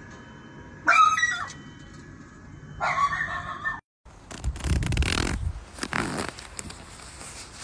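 A small dog gives two short, high-pitched whining cries about two seconds apart. After a break, a nylon down jacket rustles as it is handled at its zipper.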